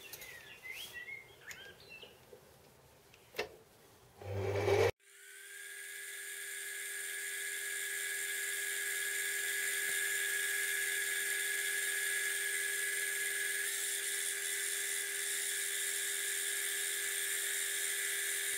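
Small benchtop metal lathe: a few light clicks, then about five seconds in the motor starts and winds up over several seconds to a steady high whine at running speed.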